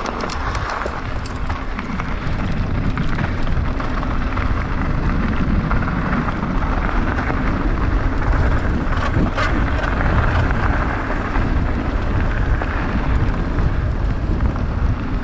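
Wind rushing over the microphone and mountain-bike tyres rolling over a rough dirt track, a steady noisy rush, with a brief sharp rattle about nine seconds in.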